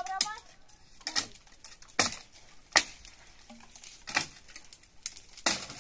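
Sharp knocks, about six of them, irregularly spaced roughly a second apart.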